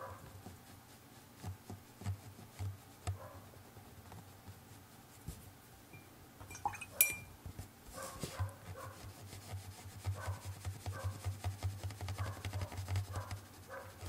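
Quiet rubbing and light ticks of a fine watercolour brush on paper, with one sharp clink about seven seconds in. Dogs bark faintly in the distance in the second half.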